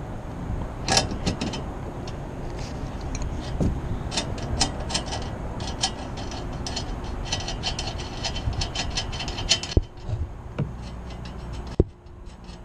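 Rapid metallic clicking and rattling of tools and hardware being worked by hand at a cell-tower antenna mount, over a low rumble of wind on the microphone. Two sharper knocks come near the end.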